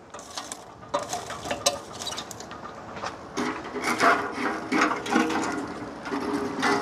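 Irregular light knocks, clicks and scraping sounds of wood and utensils being handled.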